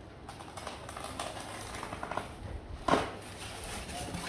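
Packaging being handled and pulled apart: scattered light scrapes and crackles, with one sharp crunch about three seconds in.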